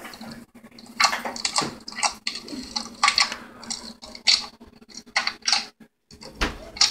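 Fingers squeezing and kneading a soft, wet white goo in a bowl of water. The squishes come as irregular sticky clicks and crackles, some of them sharp.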